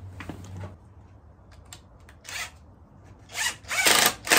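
DeWalt cordless drill run in short bursts into a wooden strip. After a brief burst, the bursts get longer and louder near the end.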